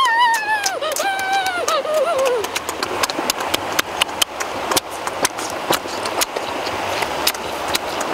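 A child's high, drawn-out "ooh" of relish that slides up and then down, followed by close-up wet chewing and lip-smacking clicks as grilled squid is eaten.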